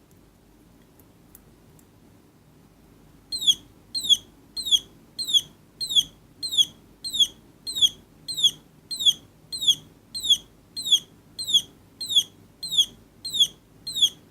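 Electronic "parrot" sound-effect circuit chirping: short, high, downward-sliding chirps repeated evenly, about three every two seconds, starting a few seconds in.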